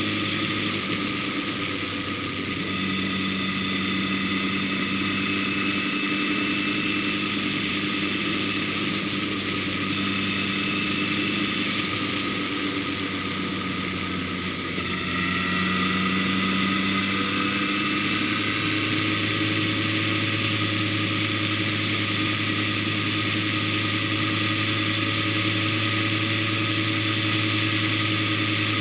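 A vehicle's engine running steadily while driving, heard from on board under a steady hiss of road and wind noise; the engine tone shifts in pitch about halfway through.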